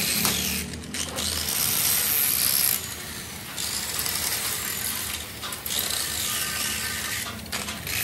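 Angle grinder with an abrasive disc grinding the surface of a cast iron engine block. It makes a steady hissing whine, broken by several brief dips as the disc eases off the metal.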